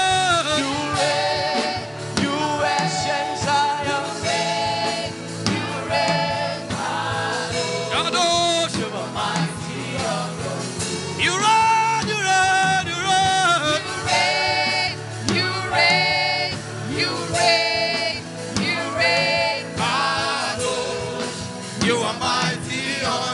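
Gospel worship song: voices singing a slow chant with vibrato over steady instrumental backing.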